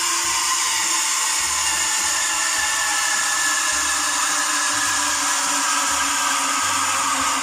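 A café drink-making machine running steadily: a continuous whir with a few faint tones that drift slightly in pitch.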